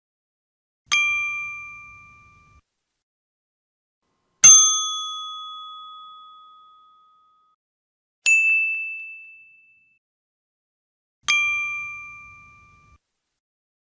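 'Idea' ding sound effect: four separate bright bell-like dings, each struck sharply and ringing out over one to three seconds. The third is higher-pitched, and the last sounds the same as the first.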